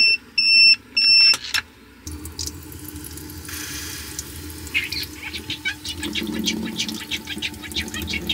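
GOURMETmaxx electric egg cooker beeping its ready alarm, about three short high beeps in the first second and a half, signalling the eggs are done. About two seconds in a tap starts running with a low hum under it, water splashing over the boiled eggs in the cooker's egg tray and into a stainless steel sink.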